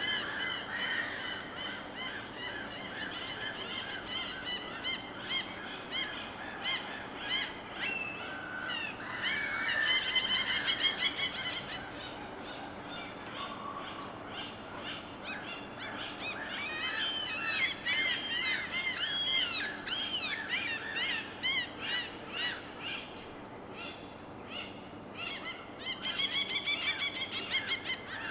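Birds calling over a steady faint background wash. Harsh, honking calls come in quick runs about a third of the way in and again near the end, with rising-and-falling chirps in between.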